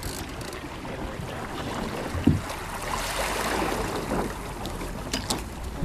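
Water washing and lapping along the hull of a small sailing dinghy as it sails close past, with wind noise; the wash swells a little past the middle. A brief low knock about two seconds in and a few light clicks near the end.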